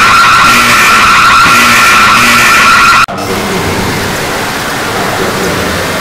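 Heavily distorted, clipping mock emergency alert system (EAS) alarm: two steady high shrill tones blare, then cut off abruptly about three seconds in. Harsh distorted noise follows, somewhat quieter.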